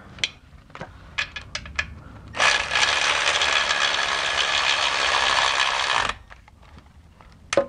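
A few light clicks, then a cordless electric ratchet runs steadily for close to four seconds, driving a bolt in, and stops abruptly. One sharp click follows near the end.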